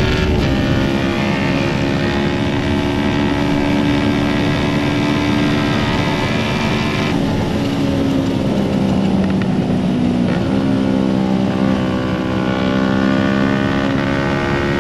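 Kawasaki Ninja 250 (2008) parallel-twin engine running steadily at highway speed, with rushing wind. The engine note shifts in pitch about ten seconds in.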